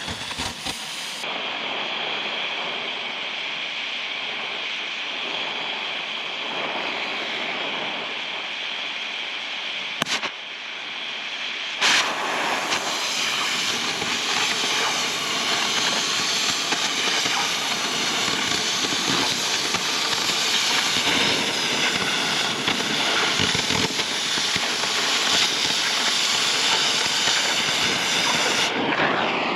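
Oxy-acetylene cutting torch hissing steadily against steel plate, with a sharp pop a little after ten seconds in. About twelve seconds in the hiss steps up louder and stays so, as when the cutting oxygen is turned on to burn through the heated steel.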